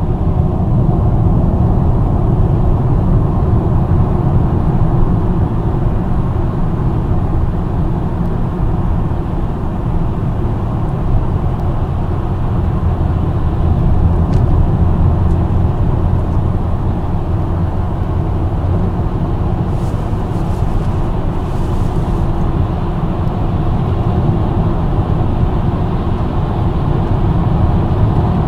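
Car driving at steady speed on a highway: a continuous low rumble of tyre and engine noise.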